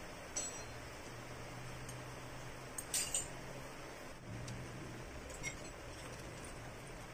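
A few light metallic clinks of small steel engine parts and hand tools being handled, the loudest a quick double clink about three seconds in, over a faint low steady hum.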